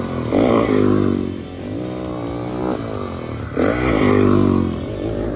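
Motocross dirt bike engines revving as riders take a jump: two passes about three seconds apart, each a burst of revs whose pitch sweeps up and down.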